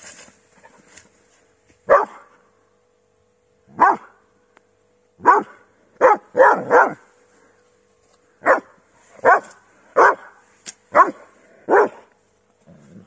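Irish setter giving a run of short barks, about a dozen, irregularly spaced with a few in quick succession, while digging with its nose and front paws in loose soil.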